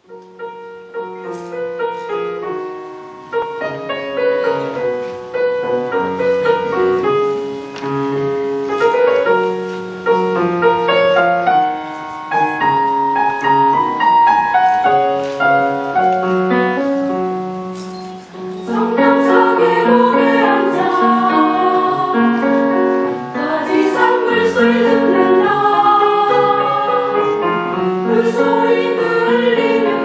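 A piano plays a slow introduction for a little over half the time, then a mixed choir of women's and men's voices comes in singing over the piano.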